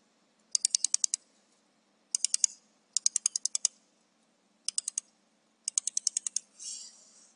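Pulsed laser welder firing on a stainless steel channel-letter seam: five short bursts of rapid sharp ticks, about a dozen a second, one tick per laser pulse, with a brief hiss near the end.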